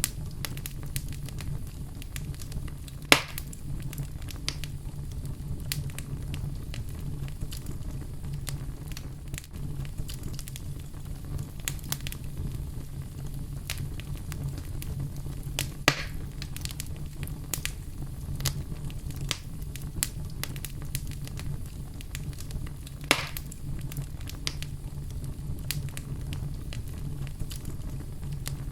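Wood fire crackling in a fireplace: a steady low rumble with small crackles throughout and three louder pops, about three seconds in, near the middle and about three-quarters of the way through.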